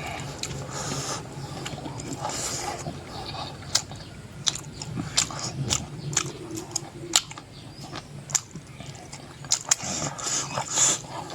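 A person eating close to the microphone: chewing with irregular sharp clicks and smacks.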